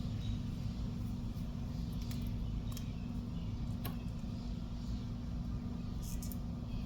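Steady low background hum with a constant drone, and a few faint light clicks of a leather watch strap being handled and buckled onto the wrist.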